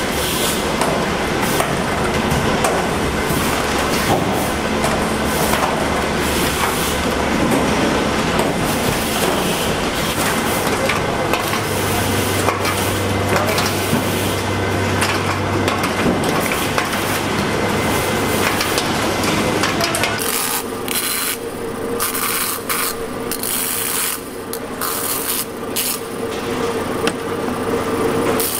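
Oyster-sorting conveyor machinery running with a dense clatter of oyster shells. About twenty seconds in it gives way to a grinding wheel's steady hum, with short bursts of grinding as oyster shells are held against it.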